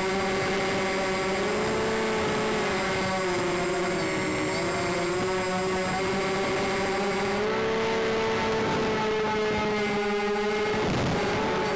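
Onboard sound of a radio-controlled model C-124 Globemaster in flight: its motors and propellers drone steadily in several pitched tones. The pitch dips for a couple of seconds a few seconds in and rises again later, and a faint high whine drops out about two-thirds of the way through.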